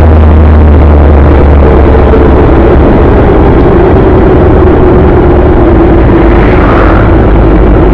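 Loud, steady vehicle running noise with heavy low rumble and a droning tone that drops slightly in pitch about two seconds in, then holds steady.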